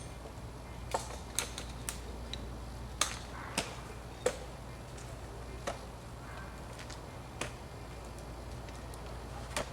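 Small branches being snapped off a tree: a string of sharp, irregular cracks, about nine, spaced from under half a second to a couple of seconds apart.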